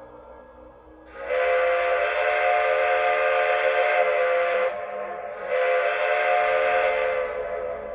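Steam whistle sound effect from the onboard sound system of a Lionel Legacy model two-truck Shay locomotive: about a second in, one long chime-like blast over a hiss, then a shorter second blast.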